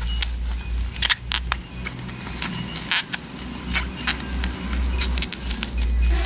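Black plastic bubble-wrap packaging pulled open and crumpled by hand: irregular crinkling with sharp crackles, over a low rumble.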